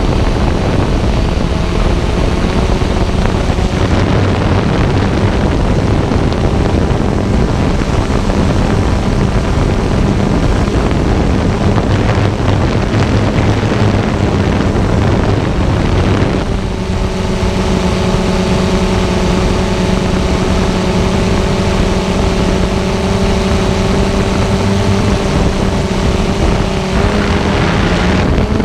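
Xiro Explorer G quadcopter's electric motors and propellers humming as heard from the drone's own camera, with air rushing over the microphone. About halfway through the rushing eases and the motor tones settle to a steady, even pitch.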